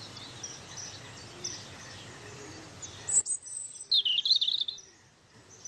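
Birds chirping and calling over a steady outdoor hiss. The hiss cuts off about three seconds in, and a louder run of quick chirps follows.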